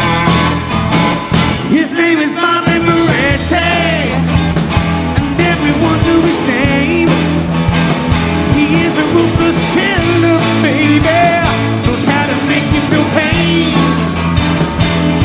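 Live blues-rock band playing: electric guitars over bass and drums, with a lead melody line bending in pitch above them. The bass and drums drop out briefly about two seconds in, then come back in.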